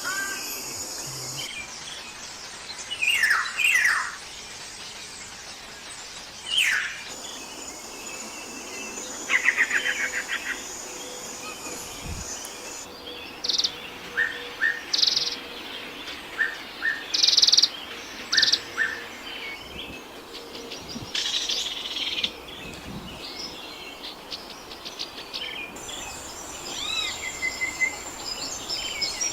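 Assorted birds calling in a series of short phrases: downward-sweeping whistles, quick trills and clusters of sharp chirps. The background hiss changes abruptly a few times between calls.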